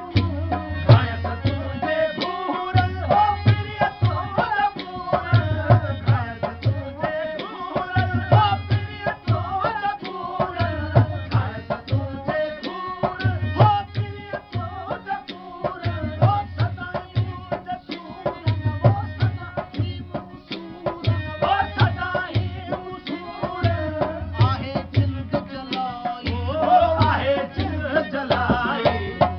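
Sindhi Sufi song performed live: a man singing over a harmonium and long-necked plucked lutes, while a hand drum keeps a steady, repeating beat throughout.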